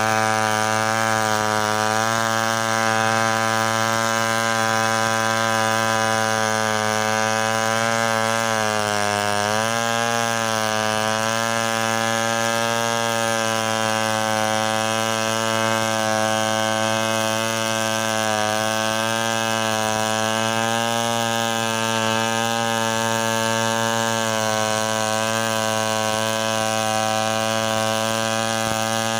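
Stihl 070 two-stroke chainsaw running at full throttle, ripping lengthwise through a coconut palm trunk. Its pitch dips briefly under load about nine seconds in, then recovers.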